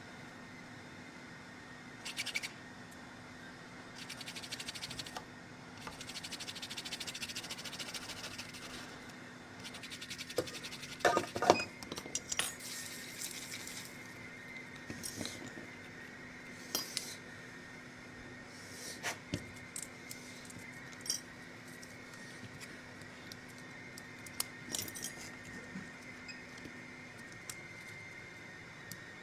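Small tools and parts being handled on a workbench during a CPU replacement: scattered light clicks, taps and scrapes, with a cluster of louder knocks about eleven seconds in, over a steady faint electrical hum.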